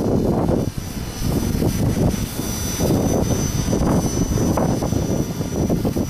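Strong wind buffeting the microphone in gusts, with a thin, steady high-pitched whine from a Belt CP electric radio-controlled helicopter in flight, strongest around the middle.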